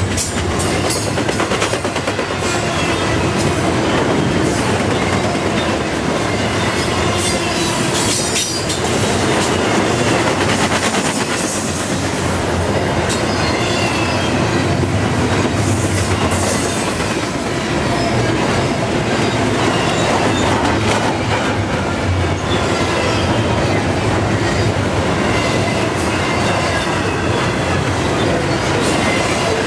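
Double-stack intermodal container well cars rolling past at speed: a loud, steady rumble of steel wheels on rail, with clicks from the wheels over the rail joints and occasional faint high squeals from the wheels.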